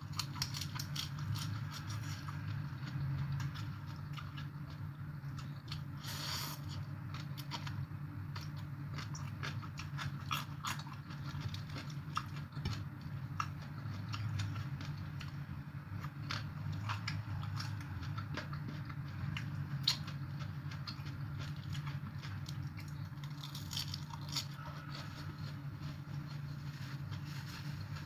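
Close-up chewing and crunching of raw cabbage, lettuce and papaya salad, with many small wet mouth clicks and one louder crunch about six seconds in, over a steady low hum.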